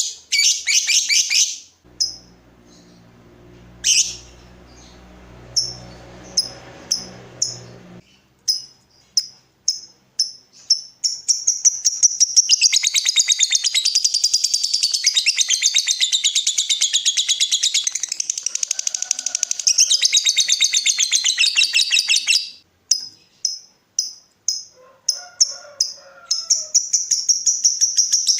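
Lovebird singing: a short burst of chatter, then sharp chirps about a second apart, then some ten seconds of fast unbroken chattering trill, the long song lovebird keepers call ngekek. Near the end come more chirps and another trill.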